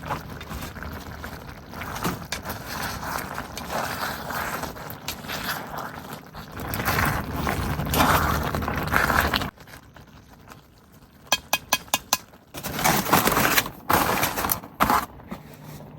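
Pasta being stirred in a camp cooking pot: a utensil scraping in the pot, then a quick run of sharp metal clinks about eleven seconds in. Before that, a loud rushing noise runs and cuts off suddenly about nine seconds in.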